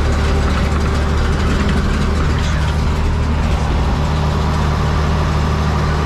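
Farm tractor engine running steadily while pulling a hay rake, a constant low hum.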